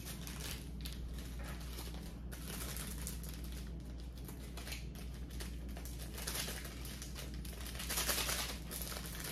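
Water boiling in a steaming stainless steel pot on an electric hot plate, a steady crackling, bubbling hiss over a low hum. A plastic seasoning packet crinkles, loudest about eight seconds in.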